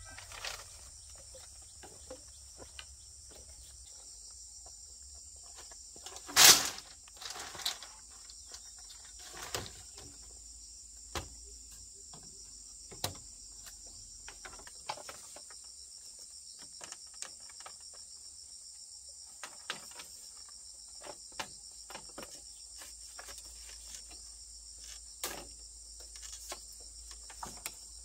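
Steady high chirring of insects, with scattered sharp clacks and knocks of split bamboo strips and poles being handled and fitted into a woven bamboo coop wall; one much louder knock about six seconds in.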